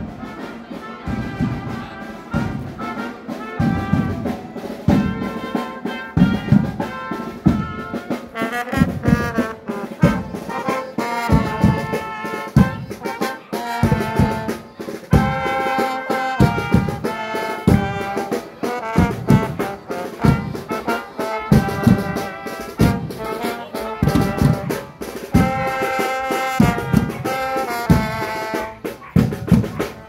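Small street brass band with trumpets and an accordion playing a lively tune over a steady low beat.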